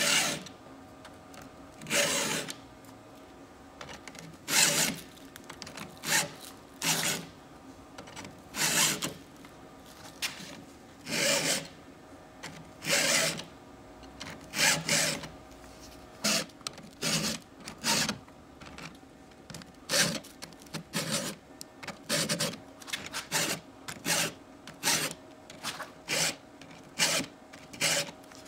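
Stihl 2-in-1 sharpener's round and flat files rasping across a chainsaw chain, sharpening each cutter tooth and lowering its depth gauge in one pass, in repeated push strokes. The strokes come about two seconds apart at first and faster in the second half.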